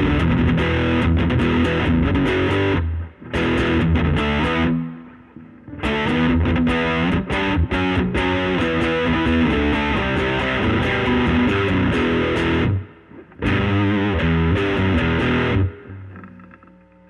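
Reverend Pete Anderson PA-1 electric guitar with P-90 pickups, played through the overdriven gain channel of a Laney Lionheart L5 Studio valve amp into a 15-inch Jensen Alnico speaker: distorted chords and riffs. There are brief pauses about 3, 5 and 13 seconds in, and the last chord fades out near the end.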